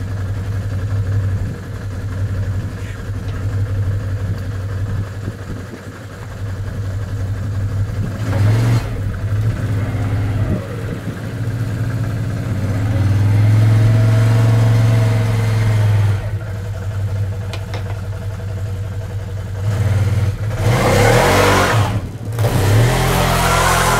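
ATV engine idling as it warms up in the cold, revved up a couple of times, then accelerating louder near the end as the quad pulls away through the snow.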